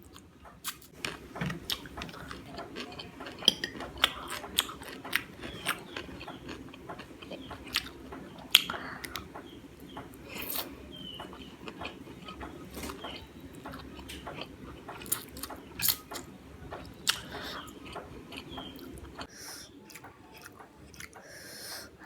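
Close-up mouth sounds of a person eating noodles and fried rice: chewing with wet smacks and sharp, irregular crunchy clicks.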